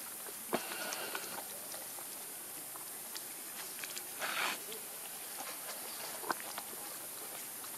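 Macaques moving on gravel and dry leaves: scattered small clicks and rustles over a steady high hiss, with a louder rustle about four seconds in.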